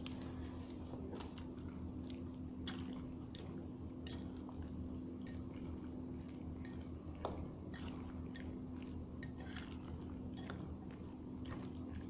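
Spoon stirring boiled macaroni with processed cheese and milk in a bowl: faint wet squishing with scattered light clicks of the spoon against the bowl.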